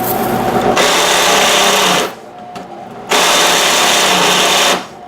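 Power drill boring a hole through steel for a sway bar bracket. It comes in two loud bursts of about a second and a half each as the bit bites, with the motor running quieter between and after them.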